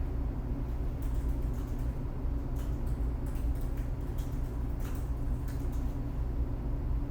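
Steady low background hum with several light clicks and taps scattered through it.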